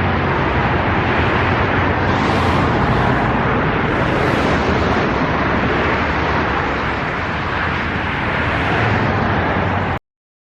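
Steady motorway traffic noise: tyres and engines running continuously, with passing vehicles swelling louder about two and four seconds in. The sound cuts off suddenly near the end.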